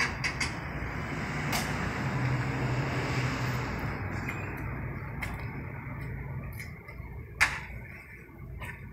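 Scattered knocks and clacks from a wood-slatted metal bed frame being tilted and handled on a hoisting strap, over a steady rumble of background noise that swells a little in the middle. One sharp knock near the end is the loudest sound.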